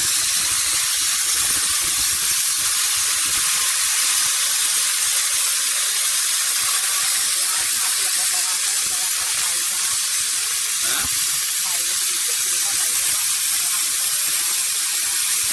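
Plasma cutting torch of an LGK 100 plasma cutter running on compressed air: a steady, loud hiss that does not change.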